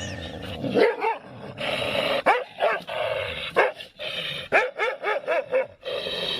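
A dog barking and yipping in a long string of short calls that rise and fall in pitch.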